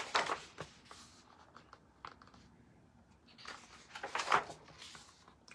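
Soft paper rustles and handling noises in two short clusters, at the start and about four seconds in: the pages of a picture book being turned.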